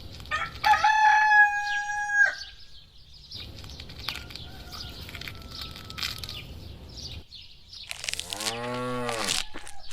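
A rooster crows once, about a second in, a held call that cuts off sharply. Near the end comes a low, drawn-out animal call that rises and falls in pitch.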